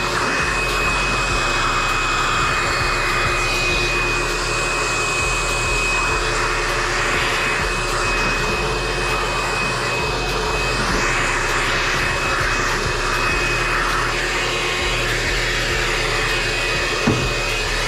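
Shop vac running steadily with a constant high whine, vacuuming up drill shavings. A single short knock sounds near the end.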